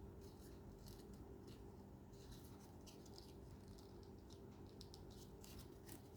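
Faint rustling and scraping of paper being handled and folded by hand, many short scrapes in a row over a low steady hum.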